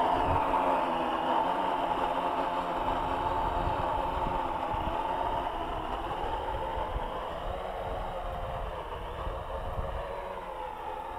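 AEE AP10 Pro quadcopter's motors and propellers whining steadily in flight, fading slowly as the drone flies away.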